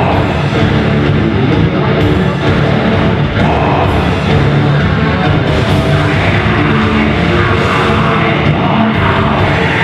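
A rock band playing live, loud and without a break: electric guitars and a drum kit in a heavy rock style.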